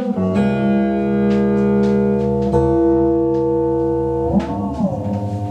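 Electric guitar sounding long, sustained notes that ring on and overlap, with new notes struck about a third of a second and two and a half seconds in. A little past four seconds in, the pitch swoops up and back down in a wavering bend.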